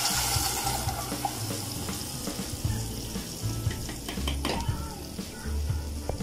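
Strained tomato juice poured from a plastic jug into hot oil with garlic in a steel pot, splashing and sizzling as it hits the oil. The sizzle is loudest at first and slowly dies down.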